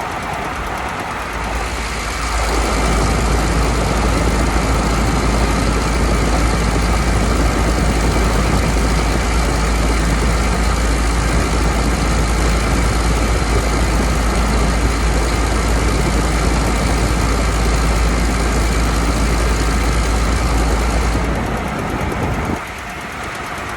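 Chrysler-built minivan's exhaust and underbody noise, recorded right at the flexible exhaust pipe behind the catalytic converter while driving. A loud, heavy rumble sets in about two seconds in and drops away near the end. The owner takes the grinding sound under the van for a failing exhaust flex pipe.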